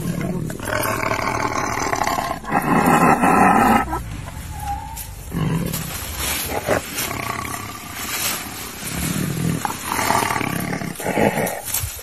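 Tiger roaring and growling in a series of drawn-out calls. The two longest and loudest come in the first four seconds, followed by shorter, quieter growls.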